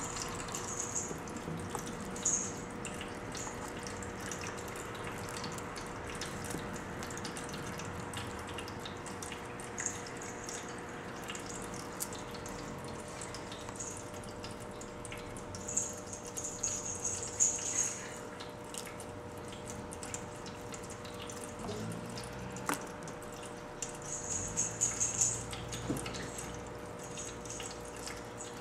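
Maine Coon kitten chewing and licking, giving short clusters of soft, wet, crackly clicks, strongest about halfway through and again near the end, over a steady room hum.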